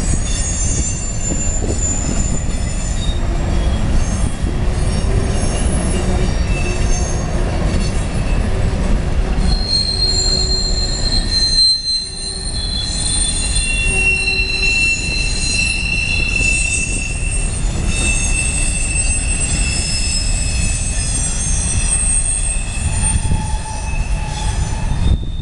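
Covered hopper cars of a freight train rolling through a sharp curve. Their wheels squeal with several high-pitched whines that come and go and change pitch, over a heavy low rumble of the wheels on the rails. The squeal comes from the wheel flanges grinding against the rail in the tight curve.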